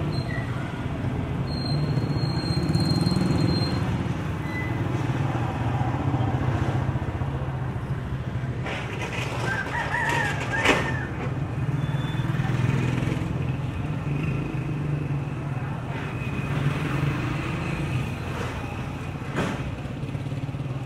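Motorcycle tricycles and motorbikes running in light street traffic, a steady engine hum that swells and fades as they pass. A rooster crows briefly about halfway through.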